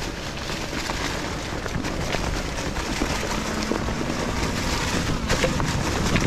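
Fat tyres of an electric bike rolling over a dry-leaf-covered dirt trail, a steady rumble and rustle with a few small knocks, with wind rushing over the microphone.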